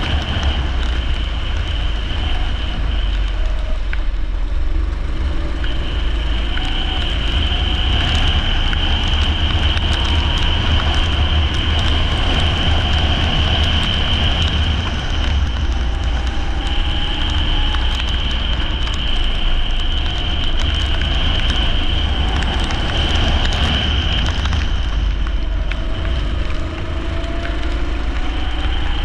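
Leisure (rental) kart engine running at racing speed on a wet track. Heard under a heavy steady low rumble and hiss, with rising engine notes as it accelerates near the end.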